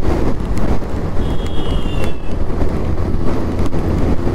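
Riding a Bajaj Pulsar 125 at highway speed: wind rushing over the microphone with the bike's single-cylinder engine and road noise under it. A faint high tone, slightly falling, sounds for about a second about a second in.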